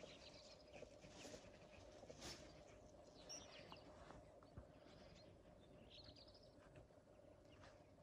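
Faint, scattered bird chirps and short calls over a low steady hum.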